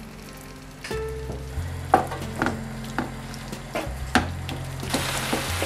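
Fish and vegetable sauce sizzling in a frying pan as smoked salmon starts to cook, with a wooden spatula knocking against the pan a few times. The sizzle grows louder near the end as the stirring begins.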